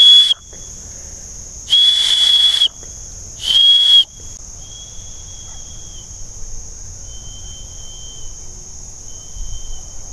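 3D-printed PETG survival whistle blown in blasts of one high, steady tone. First come loud blasts right next to the microphone, ending about 4 s in, then three fainter blasts from about 100 feet away.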